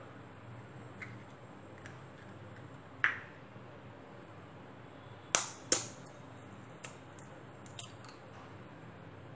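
Eggs knocked against the rim of a stainless steel bowl to crack them open. One sharp knock with a short ring about three seconds in, then two quick knocks close together a little past halfway, with a few faint ticks between.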